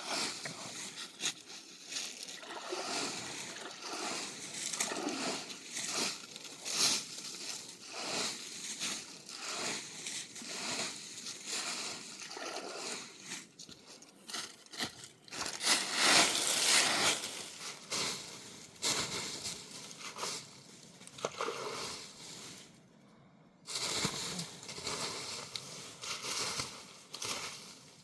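Water sloshing and splashing irregularly, louder for a few seconds in the middle.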